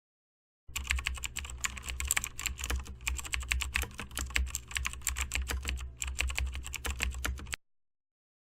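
Typing on a computer keyboard: a fast, uneven run of key clicks over a low steady hum, with a brief pause near the end. It starts suddenly a little under a second in and cuts off abruptly about a second before the end.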